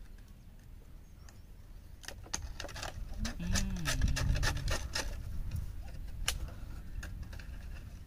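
Plastic bottles being handled while binding wire is threaded and twisted through holes in them: a cluster of scrapes, rubbing and clicks of plastic and wire for a few seconds in the middle, with a short low wavering tone about three seconds in.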